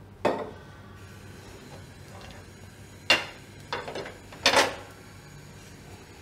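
Metal knocks and clatters of a non-stick tawa being shifted and tilted on a gas-stove burner grate to spread oil: one shortly after the start, a sharp one about three seconds in, a couple of small ones, and the loudest at about four and a half seconds.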